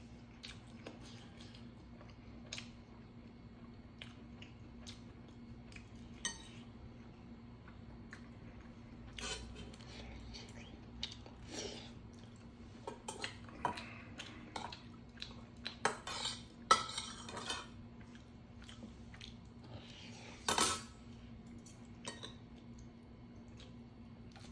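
Metal chopsticks and a spoon clinking and scraping against stainless steel bowls while eating, in scattered single clicks that come thicker and louder in the second half.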